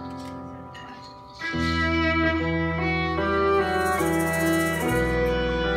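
Live instrumental band music with electric guitar: quiet held notes at first, then about a second and a half in it swells louder with a deep sustained bass note under long held melody notes.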